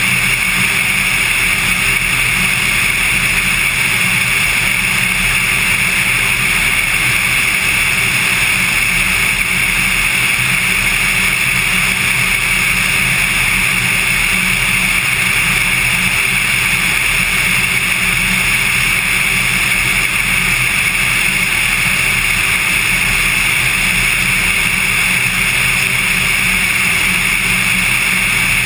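Cessna 182 light aircraft in cruise: its piston engine and propeller drone steadily, with a constant rush of air and no change in pitch.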